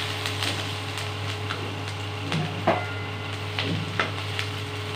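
Wooden spatula scraping and knocking against a kadhai as fried onion slices are pushed out of the tilted pan, in short irregular strokes over a steady low hum.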